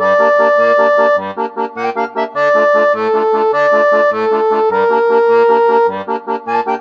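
Background music: a melody of held notes over an accompaniment that alternates a low bass note with a chord in a steady, bouncy beat.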